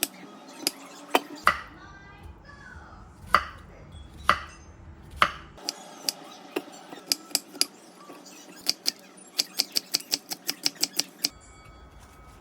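Kitchen work: scattered knocks and clinks of utensils and dishes, then a quick even run of about a dozen knife chops on a cutting board near the end.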